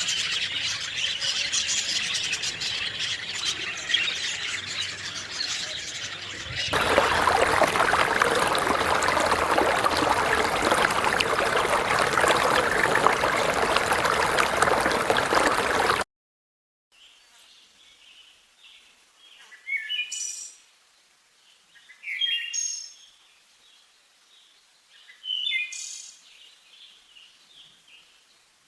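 A dense chorus of many birds chirping, growing louder about seven seconds in, then cutting off abruptly. After a pause, a single bird gives a short call of a few falling notes three times, every two to three seconds.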